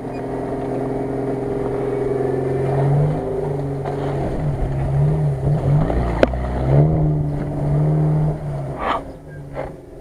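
Off-road SUV engine running and revving while the vehicle drives through deep mud, its pitch steady at first and then rising and falling several times as the throttle is worked. There is a single sharp click about six seconds in.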